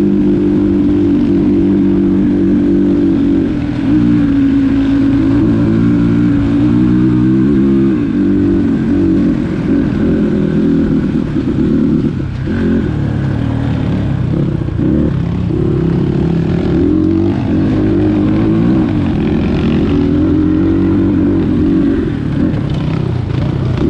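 Dirt bike engine running on a trail ride, its pitch rising and falling with the throttle, with a short drop in level about twelve seconds in.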